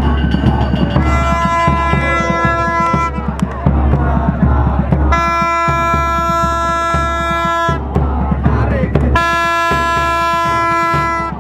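Plastic vuvuzela-style trumpet horn blown in three long, steady, single-pitch blasts of about two to three seconds each.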